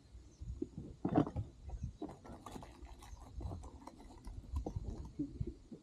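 Irregular knocks, clicks and low thumps of gear and paddle against a kayak, with the loudest knock about a second in.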